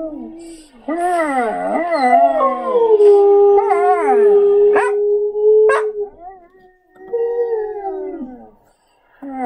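Samoyed howling with her head thrown back: long howls that waver and slide up and down in pitch, with more than one howling voice overlapping and one holding a steady note, set off by recorded samoyed or husky howls. The howling drops away about six seconds in, comes back briefly, and stops near the end.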